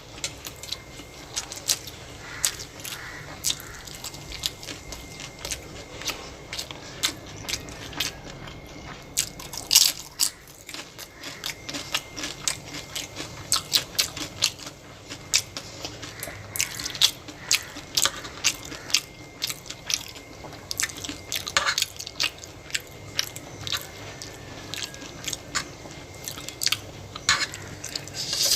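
A person chewing and eating spicy chow mein and chili nachos close to the microphone, with frequent irregular crunching clicks and mouth sounds.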